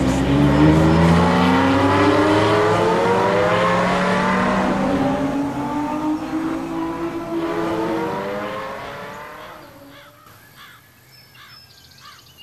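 A car accelerating away through several gears: the engine pitch climbs, drops back at each shift and climbs again, then fades out about ten seconds in.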